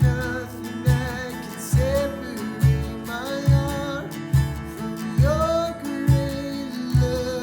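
Worship song: acoustic guitar and a singing voice over a steady beat of low thumps a little under a second apart.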